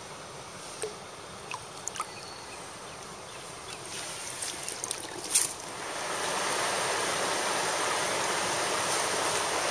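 Mountain stream water running over rocks, growing louder and steadier about six seconds in. A few short clicks and knocks come before that, the sharpest just past five seconds.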